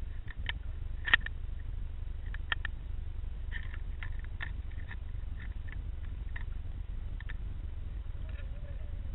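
Underwater recording: a steady low rumble with about fifteen small, sharp clicks scattered through it, the loudest about a second in, and a faint wavering tone near the end.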